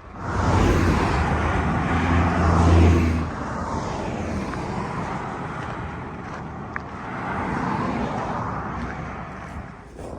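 Road vehicles passing close by. A loud one with a low engine drone goes by in the first three seconds, and a second swell of tyre and engine noise passes near eight seconds.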